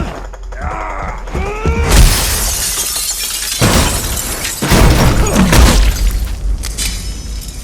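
Added fight sound effects: glass shattering in a loud crash about two seconds in, then a second heavy crash about two and a half seconds later, trailing off into fading noise. Before the first crash there is a short pitched sweeping sound.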